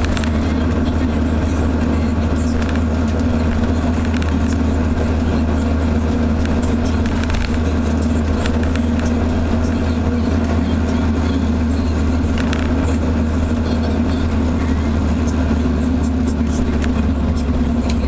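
Cabin sound of a naturally aspirated Volvo 245 with a 3-inch exhaust from the Y-pipe back, cruising at a steady engine speed. A steady low exhaust drone is mixed with engine and road noise, and the car's own noise partly covers the exhaust.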